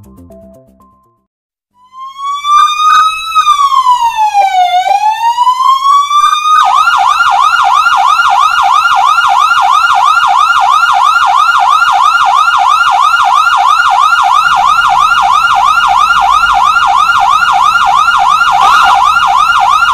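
Ambulance siren: a slow wail that rises, falls and rises again, then about six seconds in switches to a fast yelp of rising sweeps, about three a second.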